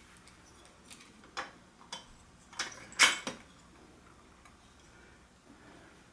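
Several sharp metal clicks and knocks as the finned cylinder head of a 66/80cc two-stroke bicycle engine is set down over the cylinder studs. The knocks bunch in the first three seconds, the loudest about three seconds in, then only a few faint ticks.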